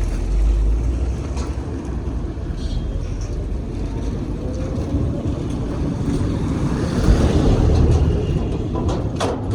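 Ride noise on an Ola electric scooter crossing a rough road: a steady low rumble with wind on the microphone, getting louder about seven seconds in. The front suspension has just been replaced, and the ride is a test for its former tick-tick rattle.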